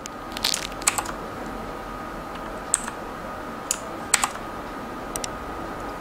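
Keys of a Zebronics Max Pro mechanical keyboard with Outemu switches being pressed as Fn key combinations to switch its lighting modes. About half a dozen sharp clicks, single or in quick pairs, spaced unevenly a second or so apart.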